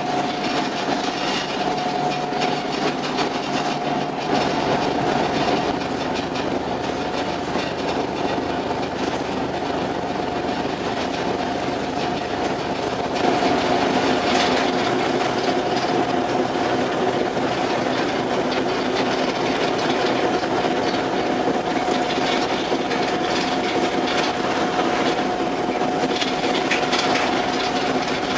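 A ferry's engines and machinery droning steadily, with a constant hum and rattle over a rush of wind and water; it gets a little louder about halfway through.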